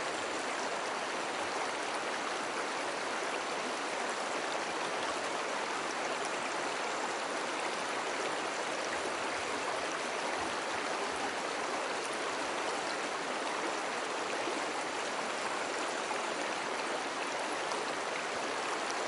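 Slow river water flowing over stones: a steady rushing babble with a light trickle.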